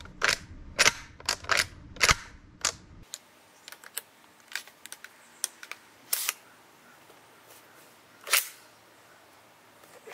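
Sharp mechanical clicks and clacks of a Legends lever-action CO2 rifle's action being worked by hand: the lever and hammer are cycled. There is a quick run of clicks in the first three seconds, then scattered clicks, with louder single clacks about six and eight seconds in.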